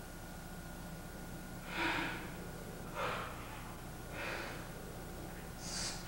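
A performer's heavy breathing: four short, audible breaths or gasps about a second apart, over a steady low hum from the recording.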